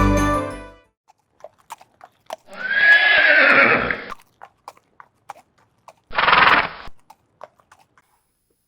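Horse whinnying: one long neigh, then a shorter one a few seconds later, with scattered clip-clop hoof knocks in between. Music fades out in the first second.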